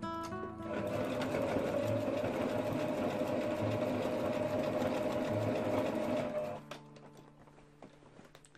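Home sewing machine stitching through leather edge binding, running steadily for about six seconds, then stopping.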